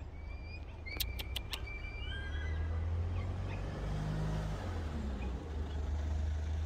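Low rumble of a car engine close by, swelling in the middle and easing off again, with a few short high chirps and a quick run of four sharp clicks about a second in.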